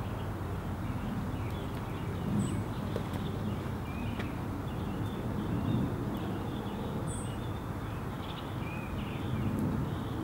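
Outdoor backyard ambience: birds chirping and calling now and then over a steady low background hum.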